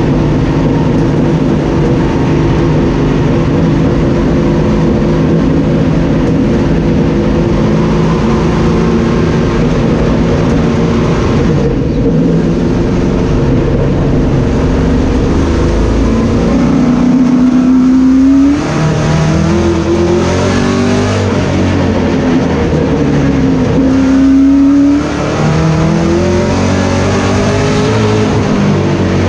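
Sportsman stock car's V8 engine heard loud from inside the cockpit. It runs at a steady pitch at first, then twice climbs in pitch under acceleration and drops sharply as the throttle is lifted, about 18 and 25 seconds in.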